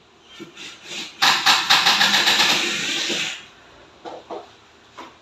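A handheld power tool runs in one burst of about two seconds, a rapid rattling buzz. A few light knocks come before and after it.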